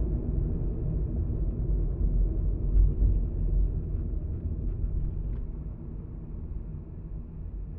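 Car's road and engine noise heard inside the cabin: a steady low rumble of tyres and drivetrain, easing off a little over the last few seconds.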